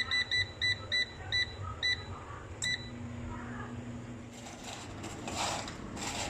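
Air fryer's control panel beeping at each button press as the temperature and timer are set: about six short, high beeps in the first two seconds, then one longer beep a little later. Rustling handling noise follows near the end.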